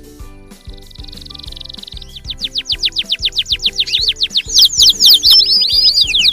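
Canary singing: first a buzzy high trill, then fast runs of repeated downward-sweeping high notes, about six a second, growing louder. Background children's music with a steady beat plays underneath.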